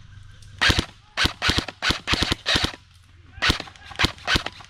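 Airsoft guns firing about a dozen sharp, snapping shots in uneven groups, with a short pause near the middle.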